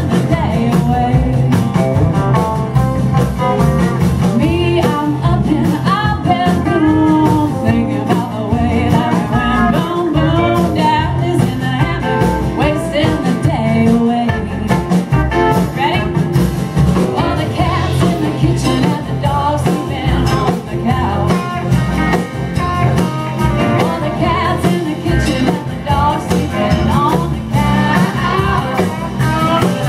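Live band playing loudly: a woman singing lead over her own strummed acoustic guitar, with electric guitar and a drum kit keeping a steady beat.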